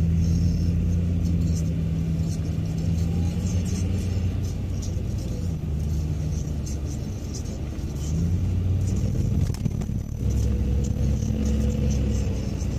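Car engine hum and road noise heard from inside the cabin while driving in city traffic. The engine note changes about eight seconds in and again, after a short dip, about ten seconds in.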